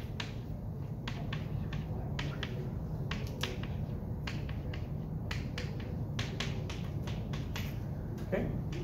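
Chalk on a blackboard: writing strokes give irregular, sharp taps and clicks, over a steady low hum.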